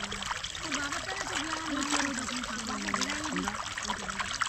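Water trickling and pouring, with faint voices talking underneath.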